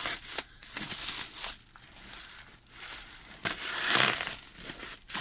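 Bubble-wrap packaging crinkling and crackling as it is cut open and pulled apart, with a louder rustle about four seconds in.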